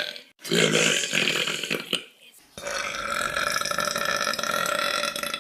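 A girl burping loudly twice: a burp of about a second and a half, then, after a short pause, a longer one of about three seconds.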